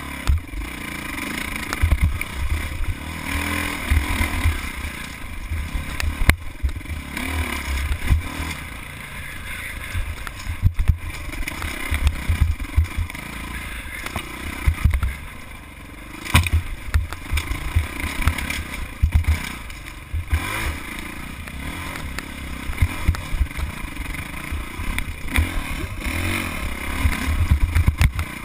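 Dirt bike engine revving up and down as the bike picks its way over rocky single track, with a rumbling, buffeting low end and a clatter of rocks and chassis knocks, several sharp knocks standing out.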